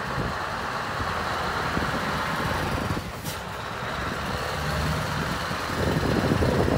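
Scania hooklift truck's diesel engine running as the truck drives slowly past, growing louder in the last second as it pulls away.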